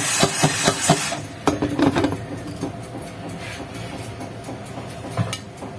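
Knocks and clinks from a lidded pot of unpopped corn kernels heating in oil, several quick ones in the first two seconds, before the kernels have begun to pop. After that only a faint steady hum, with one more click near the end.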